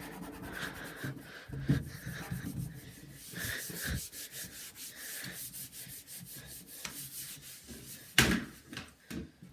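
Rapid back-and-forth scrubbing strokes of a hand rubbing a desktop computer case clean, with a single louder knock about eight seconds in.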